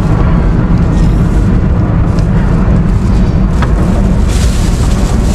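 Boat's outboard motor idling close by, a loud steady low rumble.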